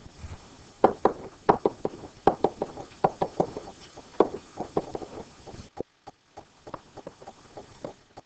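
Pen knocking and tapping on an interactive whiteboard's surface during handwriting: a quick, irregular run of sharp clicks that thins out after about six seconds.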